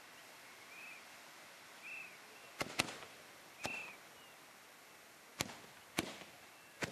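Tezutsu hand-held bamboo-tube fireworks: a faint steady hiss, then several sharp bangs from about two and a half seconds in, the first two close together.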